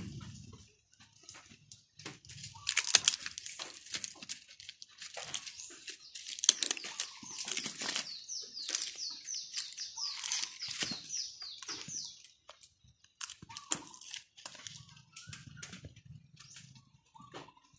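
Charred, dry banana-leaf wrappers crinkling and tearing as they are peeled by hand off grilled rice cakes, a run of crackles and rustles. In the middle comes a quick series of high, falling chirps.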